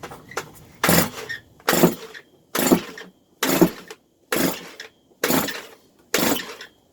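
Stihl two-stroke concrete saw being pull-started over and over, its recoil starter cord ripped out about once a second, seven pulls in a row, without the engine catching despite starting fluid sprayed in.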